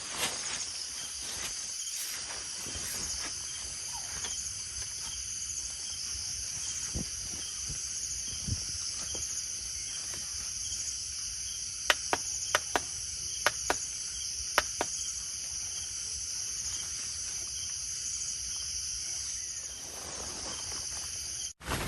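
A steady chorus of insects chirring, with a few sharp clicks a little past halfway.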